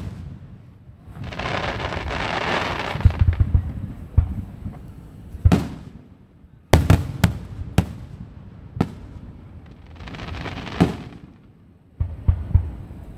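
Fireworks going off: a few seconds of hissing noise, then a series of sharp bangs, several about a second apart, with another short hiss and bang about ten seconds in.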